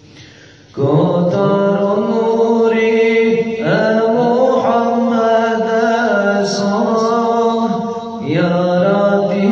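A man singing an Islamic devotional hymn (ilahija) into a microphone, holding long notes that bend and ornament in pitch. The singing comes in about a second in after a short pause for breath and dips briefly for another breath near the end.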